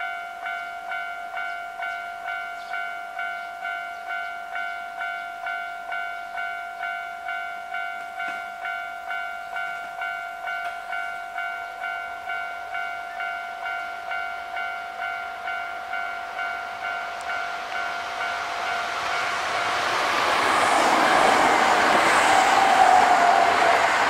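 Railway level-crossing alarm ringing in a steady, even repeating ding, about one and a half times a second. From about three-quarters of the way through, a Hankyu 8300 series eight-car electric train approaches and runs past, and its running noise swells and drowns out the bell.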